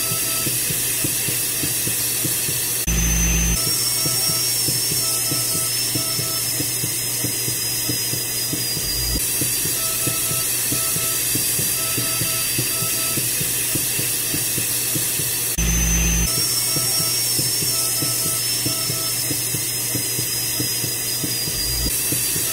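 A looped background track: steady hiss with a high, slightly wavering whine and faint beeping tones switching on and off, the whole pattern repeating about every thirteen seconds.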